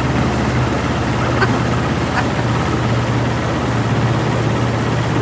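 A jon boat's motor running steadily at cruising speed, a constant low hum under even wind and water noise.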